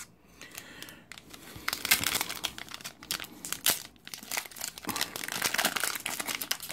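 Foil Yu-Gi-Oh! booster pack wrapper crinkling as it is handled and torn open, a dense run of quick crackling rustles starting about a second and a half in.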